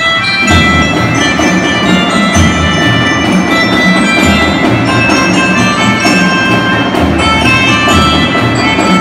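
Elementary-school marching band playing: bell lyres ring out a melody over a steady beat of bass drum, the full band coming in louder about half a second in.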